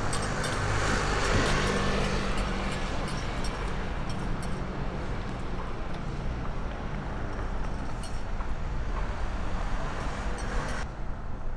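Outdoor road traffic noise: cars running on a street, a steady rumble with faint scattered ticks. The higher hiss drops away suddenly near the end.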